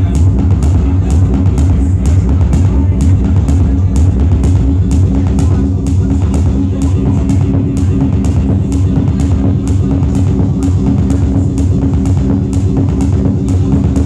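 Loud electronic music played live from a laptop and electronic instruments: a steady, even kick-drum beat with regular hi-hat ticks over held low bass tones.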